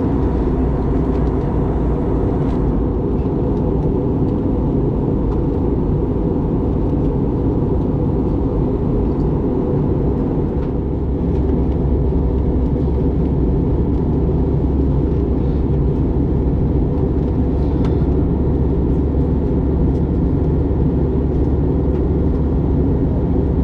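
Steady cabin noise inside an Airbus A321neo on approach: a low drone of engines and rushing air, growing slightly louder about eleven seconds in.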